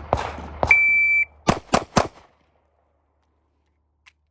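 Two sharp bangs, then a shot timer's start beep, a steady tone of about half a second. Three fast pistol shots from a Glock 27 in .40 S&W follow, about a quarter second apart: a three-shot timed drill.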